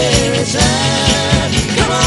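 Background pop music: held melodic notes over a steady drum beat.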